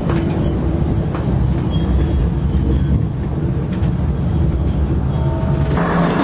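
A tram running along its route, heard from inside the car: a steady low rumble of wheels on rail, with a few light clicks.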